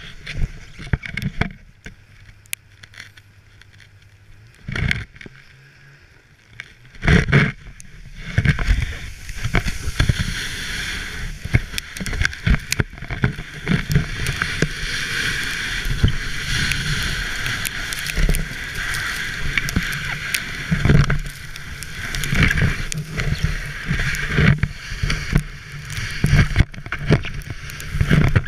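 Sled sliding over deep snow behind a snowmobile: a steady rushing hiss of snow and wind with frequent knocks and jolts. The hiss picks up about seven seconds in, after a quieter start with a low steady hum.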